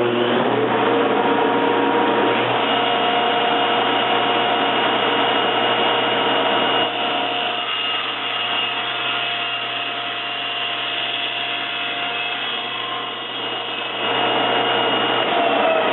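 Table saw motor coming up to speed and running steadily, cutting a shallow bevel facet along the edge of a wooden tabletop held in a jig. Its tones rise as it starts, the sound is a little quieter through the middle, and the pitch falls near the end.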